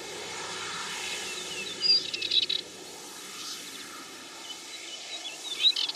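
Outdoor nature ambience: birds chirping in short bursts over a steady background hiss, with a cluster of chirps about two seconds in and more near the end.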